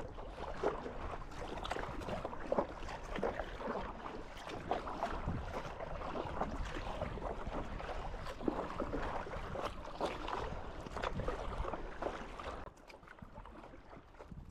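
Kayak paddle strokes splashing and dripping in the water, with wind rumbling on the microphone. It goes quieter about two seconds before the end.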